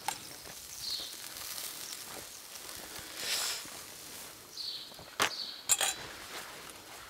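Metal spoon scraping and clinking against a stainless steel bowl as dressing is spooned out, with a few sharp clinks about five seconds in.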